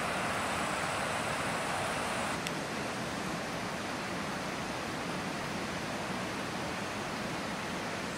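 A steady rushing noise, like running water or wind, that drops a little after about two seconds. There is one faint click.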